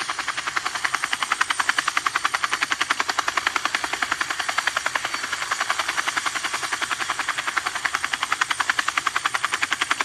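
Toy helicopter running with its rotors spinning, making a steady rapid chopping of about ten pulses a second.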